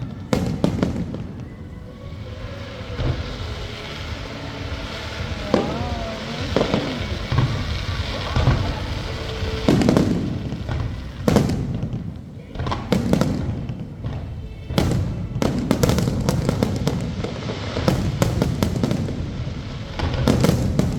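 Fireworks display going off overhead: a long run of sharp bangs, some in quick clusters, with crackling bursts between them.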